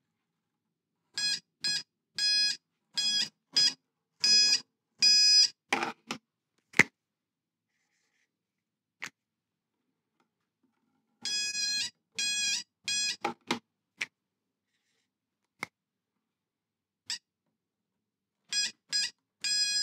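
Handheld metal detector beeping as it is swept over an old wooden bench top: spells of short repeated beeps, some coming quickly, that signal nails buried in the wood, with a few single sharp clicks between the spells.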